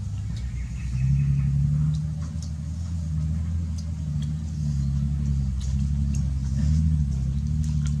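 A low, steady engine drone whose pitch wavers slightly, getting louder about a second in.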